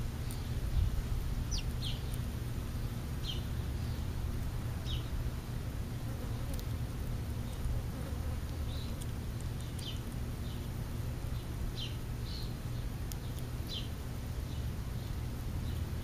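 Short, high, downward-sliding chip notes from a small bird, repeated irregularly every second or two, over a steady low rumble.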